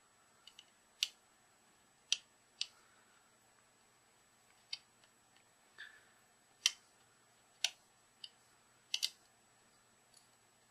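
A plastic trimming tool turning a trimmer potentiometer on a circuit board to null the power supply's output offset. It makes about a dozen small, sharp clicks at irregular intervals.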